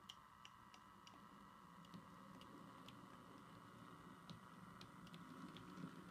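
Model ABe 504 railcar running slowly over the layout's points: its wheels give irregular light clicks at rail joints and turnout frogs, over the model's faint steady motor whine and a low hum.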